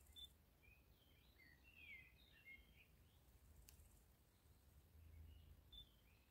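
Faint birdsong: a small bird's twittering chirps during the first three seconds and again near the end, over a faint low rumble, with one sharp click about midway.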